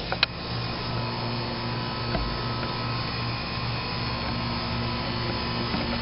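York 2.5-ton central air conditioner's outdoor condensing unit running: a steady hum with fan noise. Two light clicks right at the start.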